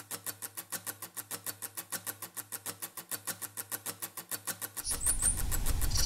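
Background music: a fast, even ticking pulse of about eight beats a second, with a deeper low sound joining near the end.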